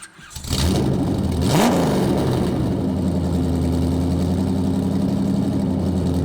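A motor vehicle's engine running: a brief rev about a second and a half in, then a steady idle.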